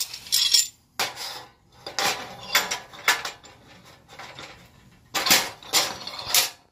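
An aluminum tube and metal clamp clanking and scraping against a steel welding table as the tube is set in place for clamping: a series of sharp metallic clinks and knocks with short ringing.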